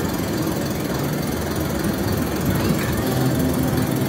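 Steady low rumble of a spinning teacup-style locomotive ride in motion.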